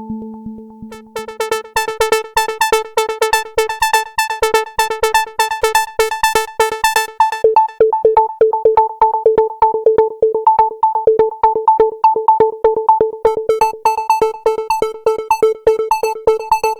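Waldorf Iridium synthesizer playing a preset: a rapid, evenly repeating plucked note pattern over a held tone. A lower drone fades out in the first couple of seconds. Bright, glassy upper overtones come in about a second in, drop away around the middle and return near the end.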